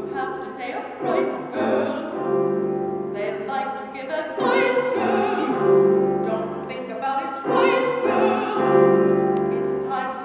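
A woman singing long held notes with a wide vibrato in a trained, operatic style, in phrases over grand piano accompaniment.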